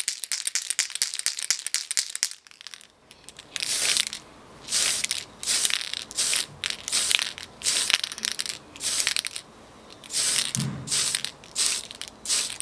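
Tamiya aerosol spray paint can: for the first two seconds or so the mixing ball rattles as the can is shaken. After a short pause comes a series of about fifteen short hisses of spray, each about half a second long, as the paint is sprayed on in quick passes.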